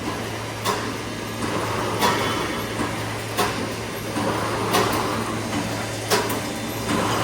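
Brickforce wire mesh welding machine running: a steady hum with a sharp clack repeating about every second and a third, five times, one clack per machine cycle.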